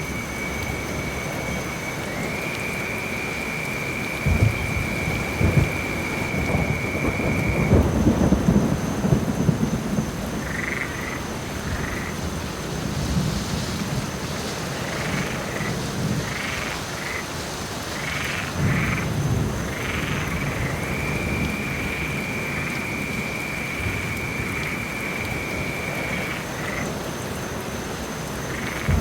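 Steady rain with low rumbles of thunder, the loudest building a few seconds in and another around two-thirds of the way through. Over it, frogs croaking in short calls and a long, steady high trill that stops and returns later.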